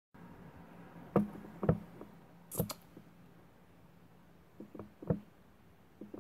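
Light knocks and clicks of a mascara tube and wand being handled and put down, a few scattered taps with a brighter click about two and a half seconds in, over a faint steady low hum.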